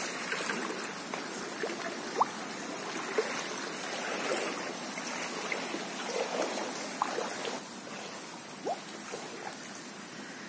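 Floodwater running and trickling in a steady wash, with a few brief gurgles.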